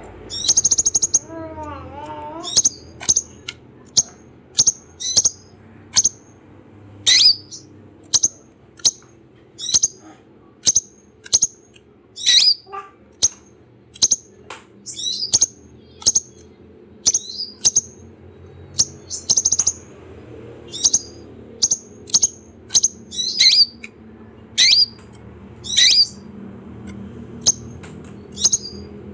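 Van Hasselt's sunbird (kolibri ninja) calling: short, sharp, high chirps repeated about once a second, over a low steady background hiss. A brief wavering lower sound comes near the start.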